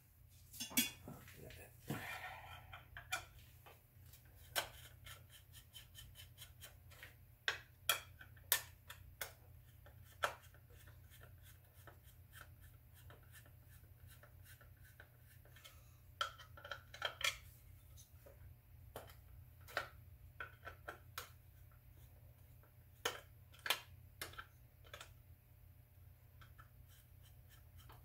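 Faint, irregular clicks and light taps with a little scraping as a screwdriver works the screws holding a clear plastic cap onto a GM HEI distributor.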